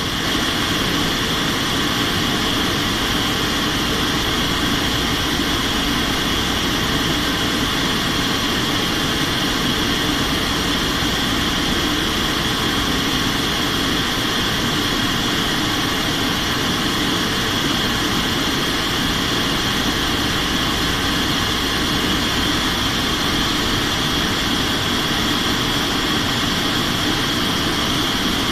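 Steady drone of an aircraft's engines and rushing air, heard from inside the aircraft in flight, even and unchanging throughout.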